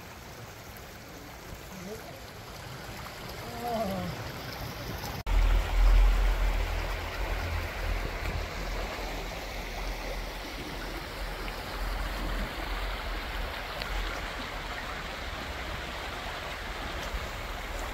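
Shallow woodland stream rushing over stones, a steady hiss of running water. It is fainter in the first few seconds, then louder and closer from about five seconds in, with a low rumble for a few seconds after that.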